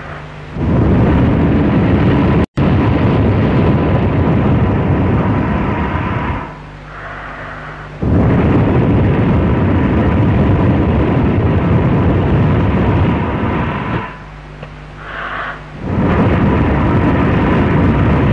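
Breath blown steadily into a close microphone, making a loud rumbling wind noise. There are three long blows of about six seconds each, with short pauses between them in which a faint electrical hum is heard. The sound drops out briefly about two and a half seconds in.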